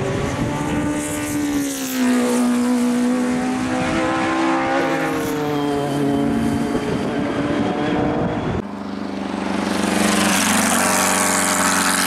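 Race car engines running hard on a circuit, the pitch climbing and dropping with gear changes. About nine seconds in the sound switches abruptly to another car's engine, which grows louder.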